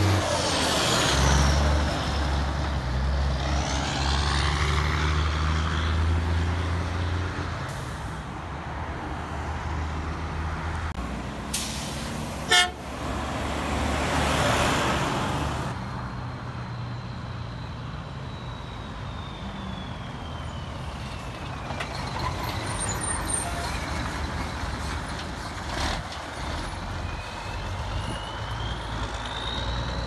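Heavy dump truck's diesel engine running loud and low as it drives close past, fading after about seven seconds into road traffic noise; a single sharp click comes about twelve seconds in.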